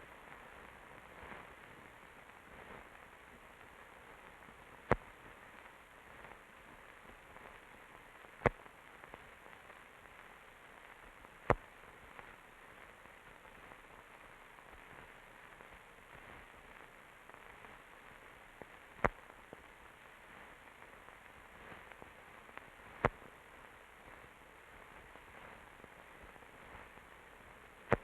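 Steady hiss of a blank old film soundtrack, with six sharp, brief clicks at irregular intervals, typical of dust and splices on the film.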